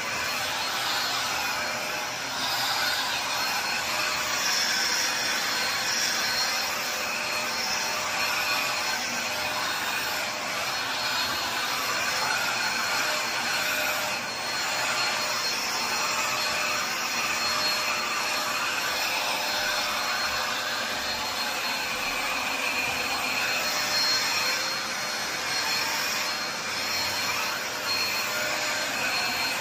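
Corded handheld vacuum running steadily with a thin high whine, drawn over velvet upholstery to pull out pet hair before cleaning. Its sound dips and swells a little as it moves across the fabric.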